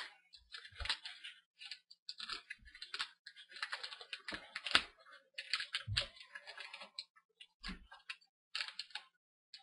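Fingernails lifting adhesive tape and prying at the video cable connector on the back of a laptop LED panel: irregular small clicks and scratchy crackles with short pauses and a few soft knocks.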